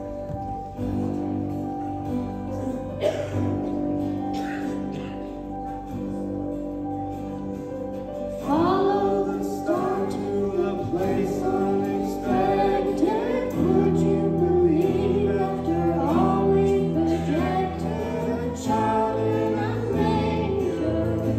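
A group of children singing a song to guitar accompaniment. For about the first eight seconds only the guitar plays; then the voices come in, louder.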